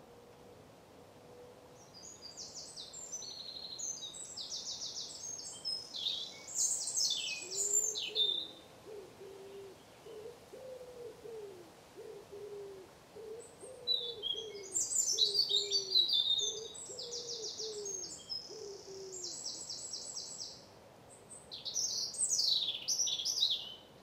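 Woodland songbirds singing in three bouts of high, quick, trilled phrases. Under the middle of it, another bird gives a slow series of low, falling hooting notes.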